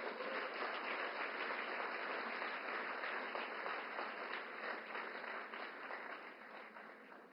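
Large audience applauding steadily, dying away over the last second or so.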